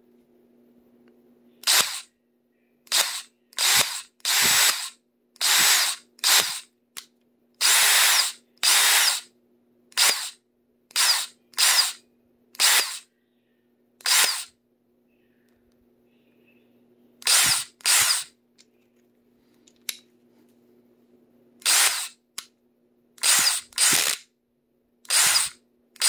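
DeWalt 20V Atomic brushless compact drill/driver triggered in about twenty short bursts, each under a second, every burst a rough, noisy sound with no clear pitch. It is the horrible noise that the drill has started making, the sign of a fault the owner cannot identify.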